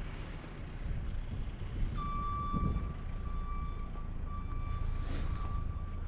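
Steady low outdoor rumble, with a thin high steady tone that comes in about two seconds in and holds for about four seconds.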